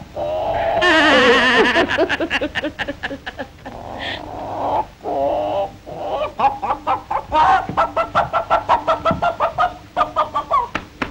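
A woman crying and wailing in an exaggerated way, her voice breaking into quick rhythmic sobs of about four to five a second, with a short pause about four seconds in.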